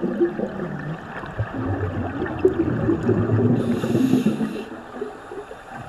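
Scuba diver breathing underwater through a regulator: exhaled bubbles gurgling, with a short hiss of inhalation about three and a half seconds in.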